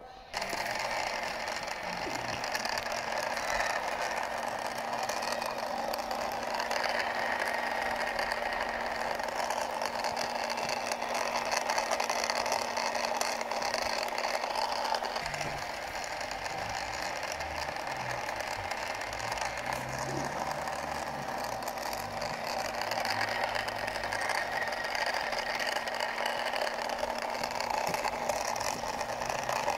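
Small DC motor in a plastic toy jeep running and driving the wheels through plastic gears, a steady whirring gear rattle as the toy rolls over rough ground. It starts suddenly just after the beginning.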